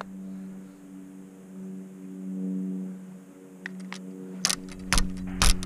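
A steady low hum with overtones, holding one pitch and swelling slightly partway through, then a few sharp knocks near the end, the last the loudest.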